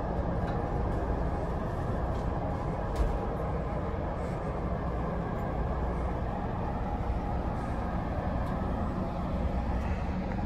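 Steady rumble and hum inside the upper level of an Amtrak Pacific Surfliner bi-level coach, with one sharp click about three seconds in.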